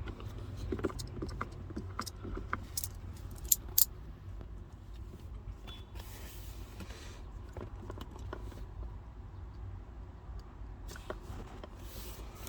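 Small scattered clicks and soft rustles of vinyl wrap film being handled and cut with a hobby knife around a car's shift knob dial, the sharpest clicks about three and a half seconds in, over a low steady hum.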